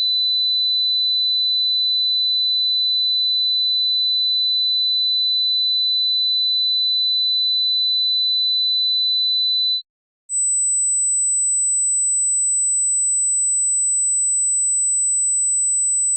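Pure electronic sine test tones: a steady high tone held for about ten seconds, a brief silent gap, then a tone an octave higher, shrill and steady, to the end.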